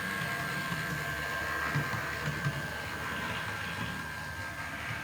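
MTB H0-scale model of a class 742 diesel locomotive running along the track on analogue power: a steady small-motor whine with a low wheel rumble.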